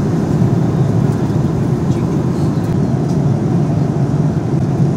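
Steady airliner cabin noise in flight: an even, low rumble of the engines and airflow.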